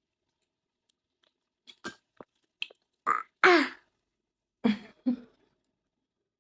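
A baby making short throaty grunts and coughing sounds, in two pairs: two about three seconds in with a falling pitch, two more about a second later. A few faint clicks come before them.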